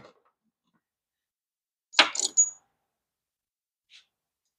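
A ratchet and socket being handled: one sharp metallic clink with a brief high ring about two seconds in, then a faint tick near the end; otherwise near silence.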